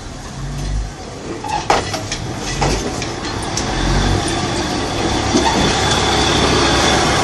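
Diesel passenger railcar rolling slowly past at close range. A few low thumps come in the first few seconds, then the rumble and rattle of the carriages grows louder as they go by.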